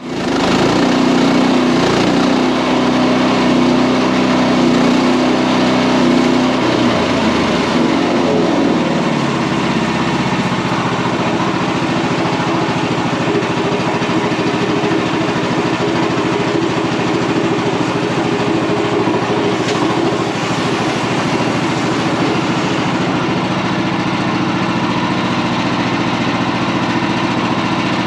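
Portable band sawmill's gasoline engine starting up and running steadily under power. Its note shifts about eight to ten seconds in, then holds even.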